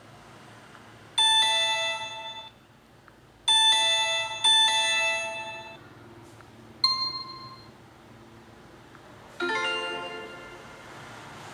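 LG LX125 ringtone played through a phone's speaker: a doorbell-like two-note ding-dong chime, high then lower, sounding three times, then a single higher ringing note and a quick cluster of notes near the end.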